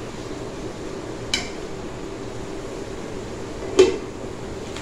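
A metal spoon knocking against a metal cooking pan while stirring a thick curry: a light clink about a second and a half in and a louder knock near the end, over a steady background hiss.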